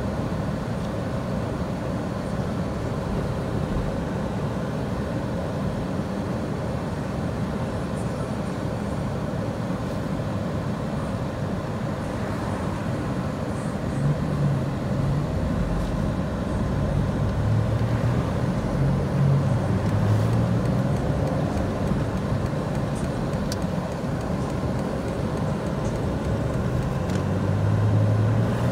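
2004 Chevy Impala driving, heard from inside the cabin: steady engine and road noise. From about halfway through, a low engine hum comes up and grows a little louder as the car gathers speed.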